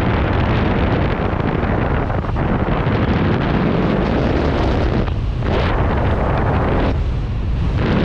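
Loud, steady wind rushing over the camera microphone during a skydive, with the hiss easing briefly twice near the end.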